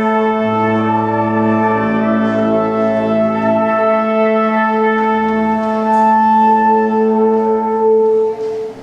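Instrumental ensemble with brass playing a slow fanfare in long held chords over a sustained low note. The chord is released just before the end.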